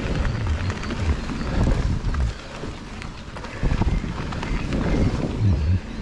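Mountain bike rolling fast down a dirt forest trail: wind buffeting the microphone in low gusts, tyres running over dirt and roots, and the bike rattling and knocking over bumps.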